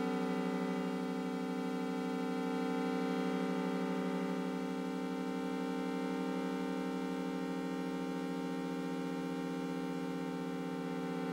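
Electronic synthesizer drone from the film's score: a dense chord of steady tones held unchanged, with no beat or melody.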